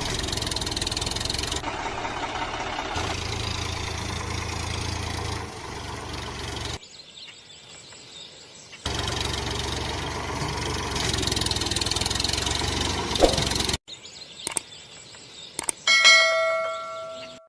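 Engine idling and running, cut off and restarted abruptly several times with a quieter gap in the middle. Near the end comes a single ringing tone that fades away.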